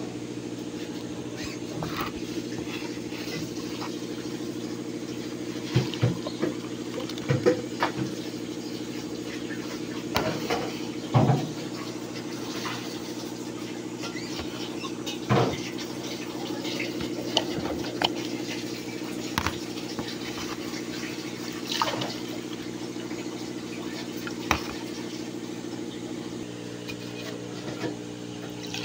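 An electric JML juicer's motor humming steadily, with short clinks and knocks of glassware here and there and juice being poured into glasses. The hum changes slightly near the end.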